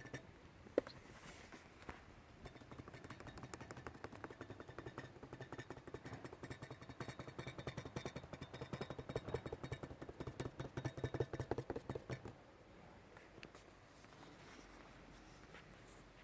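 Fast typing on a MacBook Pro Touch Bar keyboard: a dense run of small key clicks that stops about twelve seconds in.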